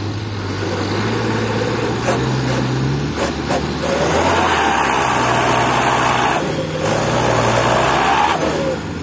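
Toyota Dyna Rino dump truck's diesel engine revving hard under load while the fully loaded truck, its rear wheels sunk in soft earth, tries to drive out. The engine note rises about a second in, gets louder from about four seconds, and drops back just past eight seconds.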